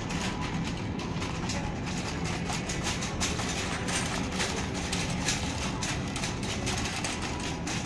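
Metal shopping cart rolling across a tiled floor, its wheels and wire basket rattling steadily with many small irregular clicks.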